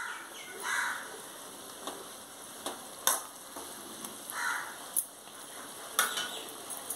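A metal perforated ladle stirring brinjal curry in an aluminium kadai, scraping and tapping against the pan a few times over the steady sizzle of the gravy simmering.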